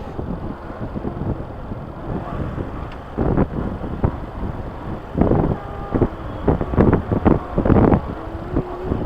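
Motorcycle riding along with wind buffeting the microphone. The gusts come in repeated loud blasts, most of them in the second half, over a steady running hum.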